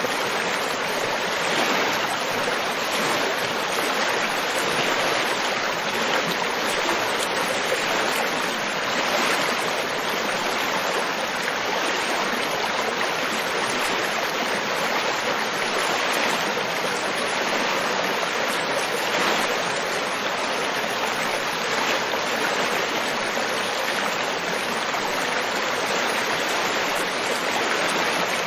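River water flowing over rocks: a steady, full rushing with small ripples in level.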